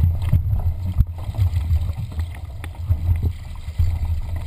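Wind buffeting the microphone of a deck-mounted camera over water rushing and splashing along the hull of an RS800 sailing dinghy under way, with a sharp knock about a second in.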